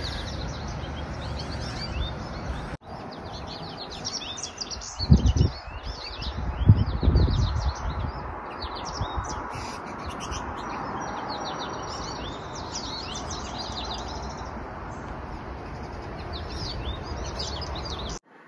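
Several songbirds singing together in a morning chorus: many short, overlapping high chirps and trills. A few low rumbling bumps on the microphone about five and seven seconds in are the loudest sounds.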